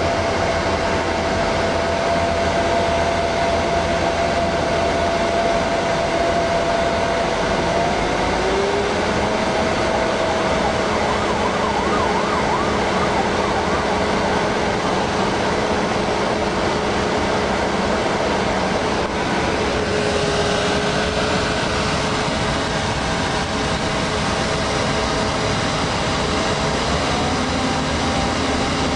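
Interior noise of a US Army Humvee on the move: the V8 diesel engine and drivetrain running under a steady rush of road and tyre noise, with a steady whine that shifts in pitch about a third of the way in and again near the end.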